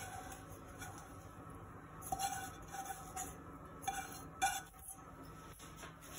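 Stainless-steel pot knocking and scraping against the rim of a bowl as boiled quinoa is tipped and scraped out of it by hand: a few soft clinks with a faint metallic ring, about two seconds in and again around four seconds in.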